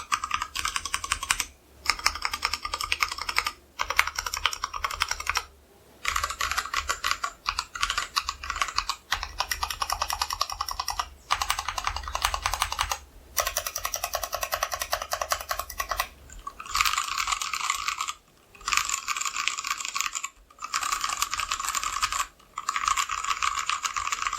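Fast typing on a Tofu60 60% mechanical keyboard with stock unlubed Gateron Yellow linear switches, a brass plate and XDA-profile keycaps, o-ring mounted with foam in case and plate. The keystrokes come in quick clattering runs of a couple of seconds, with brief pauses between them.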